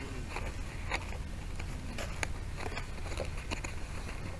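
Irregular crackles and clicks from the foam model airplane and its onboard camera being handled on the ground, over a steady low rumble of wind on the camera's microphone. The propeller is stopped and the motor is not running.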